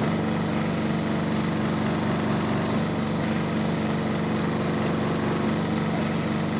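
Home oxygen concentrator running: its compressor gives a steady, even hum over a steady hiss of air. It is shortly after start-up, while the oxygen purity is still climbing toward full level.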